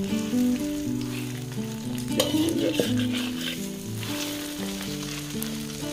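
Bánh xèo crepe batter sizzling in a hot flat steel pan, with a metal spatula scraping and turning it against the pan about two seconds in.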